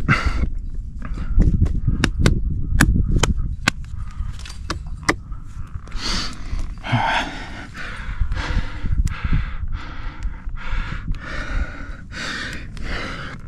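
A climber breathing hard, with rapid noisy breaths close to the microphone. A quick run of sharp clicks falls in the first few seconds.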